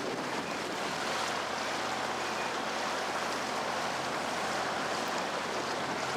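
Steady rushing of water, with the low running hum of a canal tour boat's motor under it.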